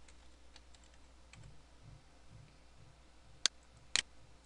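Computer keyboard being typed on, faint scattered keystrokes over the first second and a half, then three louder sharp clicks near the end, about half a second apart.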